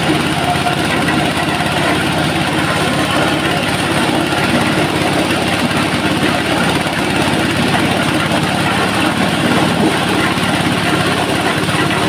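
Jumbo double-blower corn sheller running steadily at work: a low engine drone under a dense, even rushing noise.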